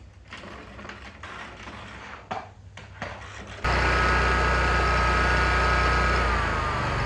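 Zero-turn mower engine running steadily, cutting in suddenly about three and a half seconds in, its pitch dropping a little near the end. Before it, a few footsteps and light knocks.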